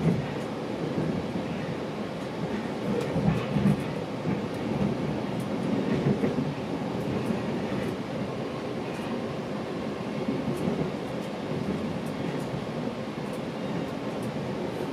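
GO Transit commuter train running along the track, heard from inside a passenger coach: a steady low rumble of wheels on rail, with a few irregular louder bumps.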